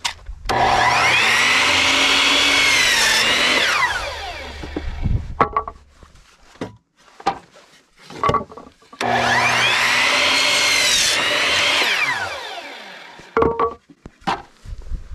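Electric miter saw cutting a wooden board twice. Each time the motor whines up to speed, its pitch sags as the blade bites through the wood, and then it winds down. Short knocks from the boards being handled come between the cuts.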